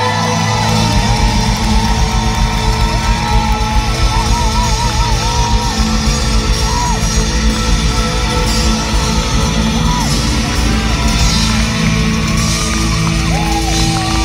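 Rock band playing live in a large hall, heard from within the crowd: sustained guitar and keyboard chords over a steady drum beat, with voices singing and yelling over the music.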